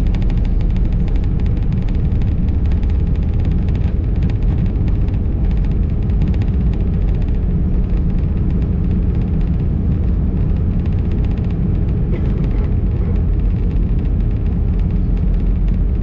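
Cabin noise inside an Airbus A319 on its landing rollout: a steady, loud low rumble from the wheels on the runway and the engines, with the higher hiss thinning out over the first couple of seconds as the aircraft slows.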